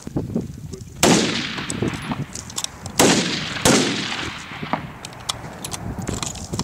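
Three hunting-rifle shots from the firing line: one about a second in, then two more close together about three seconds in, each followed by a long fading echo.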